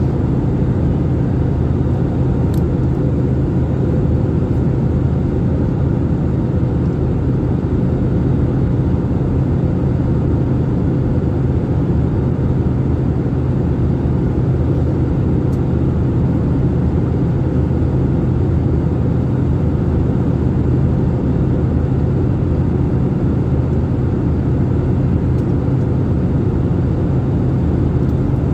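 Steady airliner cabin drone: engine and airflow noise, mostly deep rumble with a constant low hum and no change in pitch or loudness.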